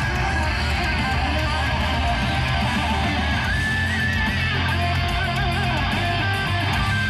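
Amplified electric guitar playing held lead notes with vibrato and bends over a steady low backing.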